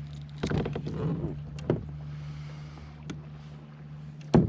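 Knocks and bumps on a kayak's hull, the loudest one near the end, over a steady low hum.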